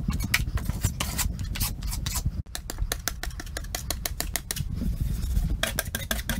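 Drywall taping knife scraping joint compound across a ceiling patch in quick, repeated strokes, over a steady low rumble.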